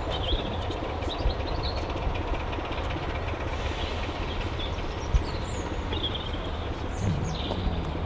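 Class 25 diesel locomotive's Sulzer 6LDA28 six-cylinder engine running with a steady low rumble as the locomotive moves slowly over pointwork, with one sharp knock about five seconds in.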